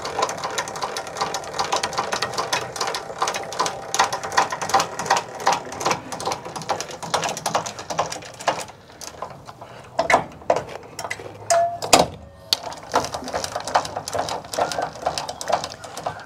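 Boat trailer tongue jack being hand-cranked to lower the coupler onto the hitch ball, its gears clicking rapidly with each turn. The cranking pauses briefly past the middle and then goes on, with one sharper knock about three-quarters of the way through.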